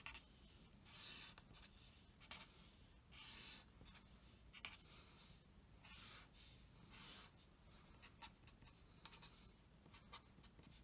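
Faint scratching of a pen drawing lines on paper over a clipboard, in a series of short strokes about a second apart with brief pauses between them.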